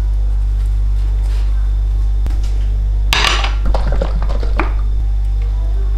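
Handling clatter of a smoothie bottle being picked up over a plate: one sharp clatter about three seconds in, then a few lighter knocks. A steady low hum runs underneath.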